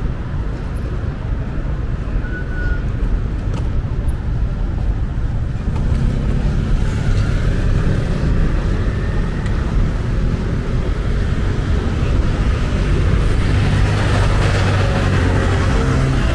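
Busy city road traffic: cars and other motor vehicles passing in a steady low rumble. It grows louder about halfway through and again near the end as vehicles draw close.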